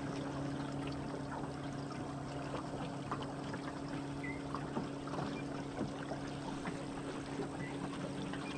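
Water lapping and trickling against the hull of a small aluminium boat, with scattered small knocks, over a steady low hum.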